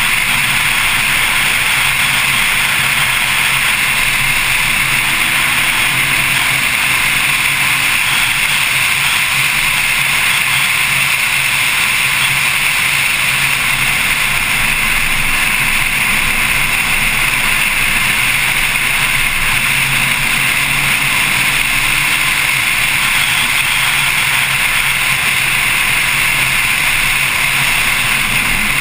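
Steady rush of wind and road noise at track speed on a camera mounted outside on the front lid of a Porsche 911 Carrera S. The rear flat-six engine is faint underneath, its pitch rising twice.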